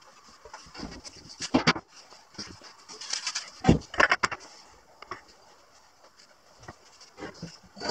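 Handling noises in a workshop: scattered knocks and clicks with some rustling as tools and the plywood workpiece are moved. The loudest knocks come about a second and a half in and around four seconds in.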